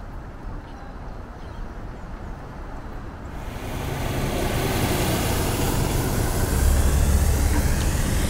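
Road and engine noise heard inside a car cabin, with a steady low engine hum as a large utility truck passes close by. It comes in suddenly about three seconds in, after a faint low rumble.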